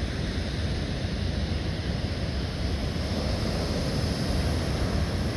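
Steady rush of water where the flooded river meets the surf, with a low wind rumble on the microphone.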